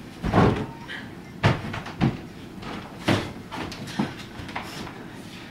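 A few short, irregular knocks and thuds from people moving about a stage set, the loudest near the start and about a second and a half in, then fainter ones.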